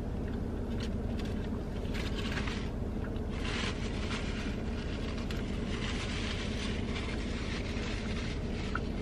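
Steady low drone of a parked car with its engine running, heard inside the cabin, with soft rustling of wrapper paper and chewing over it.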